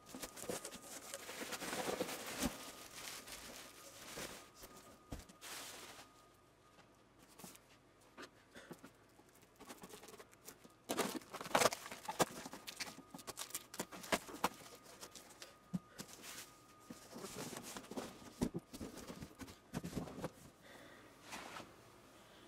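Cardboard box and packing material being handled and opened, with irregular rustling and scraping broken by sharp clicks and knocks.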